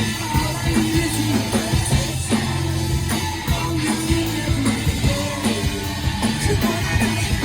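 A live band playing a song: guitar and a drum kit keeping a steady beat over sustained low bass notes.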